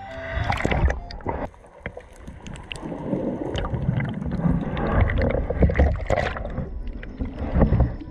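Sea water churning and bubbling around an action camera held under the surface in the surf, heard muffled through the camera housing as a heavy low rumble with scattered sharp clicks.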